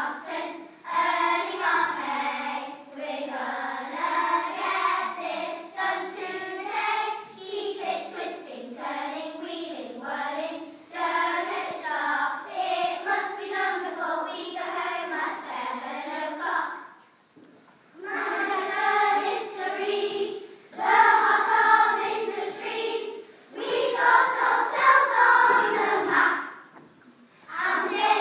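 A class of young children singing together in unison, pausing briefly twice between phrases.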